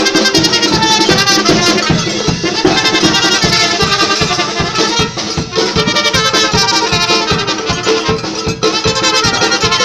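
Brass band music playing at full volume, with a steady drum beat under the horns.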